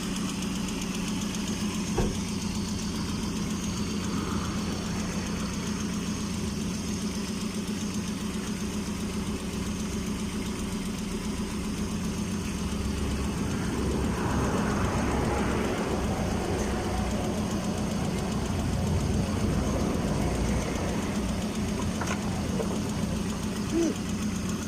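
GAZelle light truck's engine idling steadily, a little louder for several seconds past the middle. It is running after a coolant hose replacement while the hose joints are checked for leaks.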